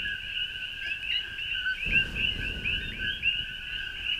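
Dense night chorus of coqui frogs: many overlapping calls, a steady lower note with rising higher chirps, several a second. A low rustling noise comes in about two seconds in.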